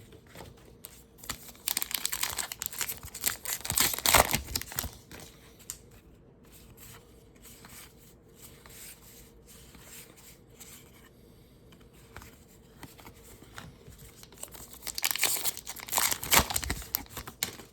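Foil wrapper of a baseball card pack being torn open and crinkled, in two bouts: one starting about a second and a half in, the other near the end, with light handling noise between.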